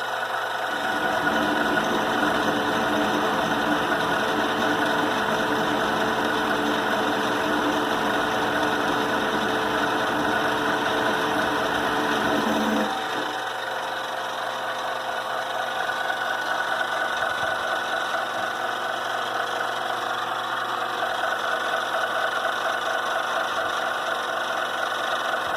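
Vevor CJ210A 8x14-inch benchtop metal lathe running under power while taking a 10-thousandths cut: a steady machine whine with several held tones. About halfway through, the deeper part of the sound drops away and it runs on slightly quieter.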